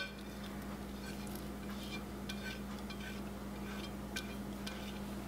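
Silicone-tipped tongs and a ceramic plate scraping shredded chicken into a slow cooker: a few faint, light clicks, over a steady low hum.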